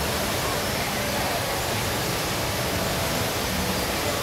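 The Rain Vortex, Jewel Changi Airport's indoor waterfall, falling from the opening in the glass dome: a steady, unbroken rush of water.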